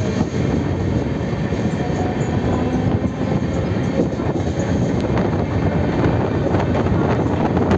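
Steady rumble and clatter of a Mumbai suburban local train running at speed, heard from its open doorway, with a few sharp clicks of wheels over rail joints.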